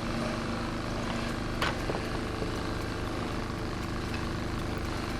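A steady motor hum with a low, even drone, and a single sharp click about a second and a half in.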